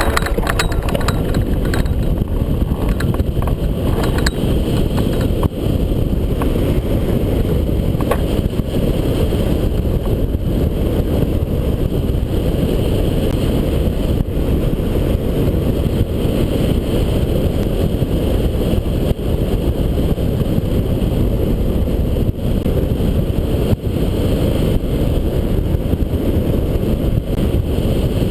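Loud, steady rush of airflow buffeting the glider-mounted microphone, mixed with the drone of the tow aircraft's engine during a hang-glider aerotow take-off and climb. A few sharp knocks sound in the first few seconds.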